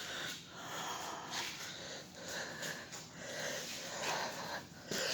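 A person breathing close to the microphone, the breath coming and going in swells about a second long.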